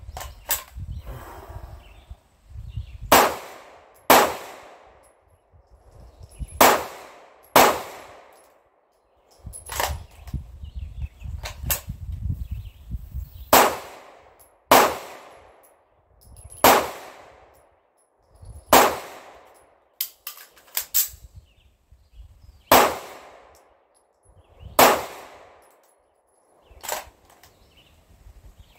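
Sig Sauer P226 pistol shots: about a dozen single aimed shots, several in pairs about a second apart, each a sharp report with a short echo under the wooden shelter roof.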